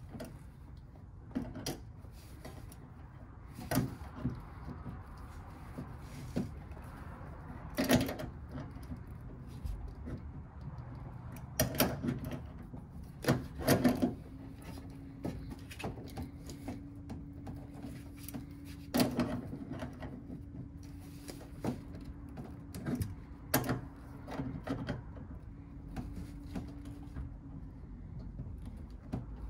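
Scattered knocks, clicks and rubbing from a hand tool working a water-line fitting on an ice machine, tightening the joint. A faint steady hum comes in about halfway through and stops near the end.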